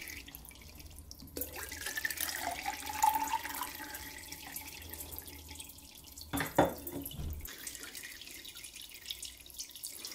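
Thin streams of water from a Kelvin water dropper trickling and splashing into stainless-steel bowls. A tone rises between about one and three and a half seconds in, and there is a brief knock about six and a half seconds in.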